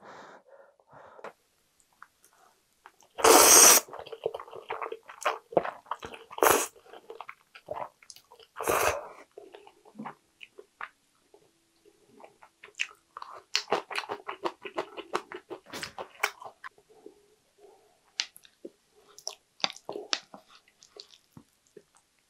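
Person eating jjajang ramen: three loud slurps of noodles in the first half, then wet chewing with many small mouth clicks.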